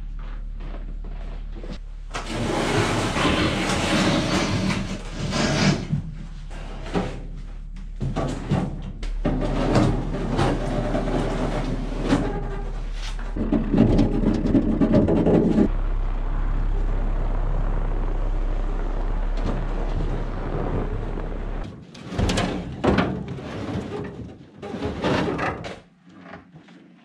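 A vehicle engine running steadily, with irregular rattling and clattering over it; the hum changes level twice. Near the end the engine stops and several sharp wooden knocks and thuds follow.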